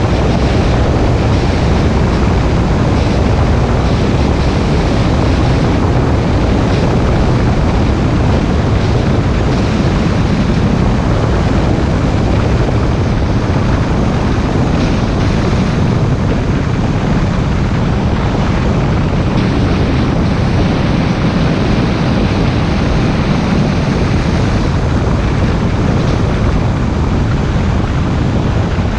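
Car driving at a steady speed: an even rush of wind and tyre noise that does not let up, with wind buffeting the microphone.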